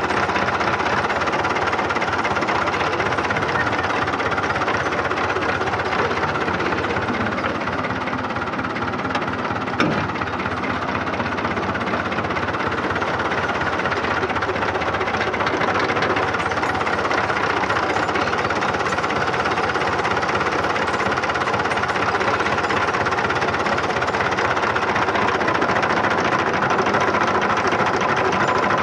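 Tractor diesel engine running steadily with a loud, fast clatter, and one brief sharp knock about ten seconds in.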